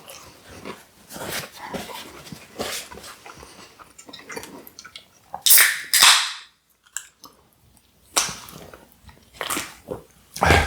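Close-miked chewing: irregular wet clicks and smacks of someone eating saucy boneless chicken bites. A louder hiss lasts about a second around the middle, followed by a short pause.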